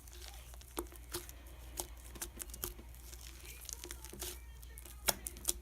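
Fluffy slime being kneaded and stretched by hand, giving scattered sticky clicks and crackles, with two louder pops about five seconds in. A steady low background hum lies underneath.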